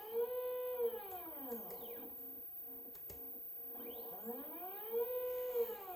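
Belt-driven stepper motors of an OnStep GoTo drive on a Dobsonian telescope whining as they slew, twice: each time the pitch rises and then falls as the drive speeds up and slows down, over a steady tone.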